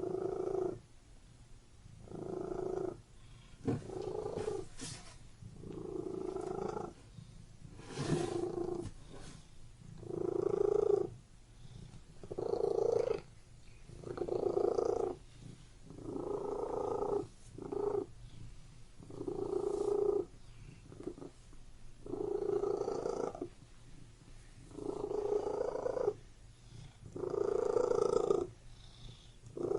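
Domestic cat purring close up, swelling and fading about every two and a half seconds with its breathing. A couple of brief clicks come around four and eight seconds in.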